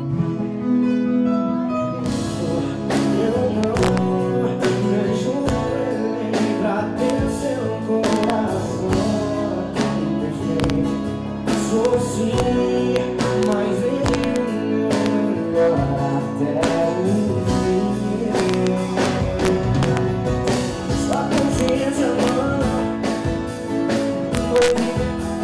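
Live band playing a song during a sound check: guitar and a singing voice, with drums coming in about two seconds in and keeping a steady beat.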